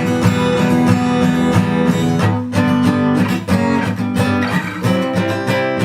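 Acoustic guitar strummed in a steady rhythm, chords broken by short percussive strokes: the 'knock' (стук) strumming technique, where the strings are struck and damped for a muted chop.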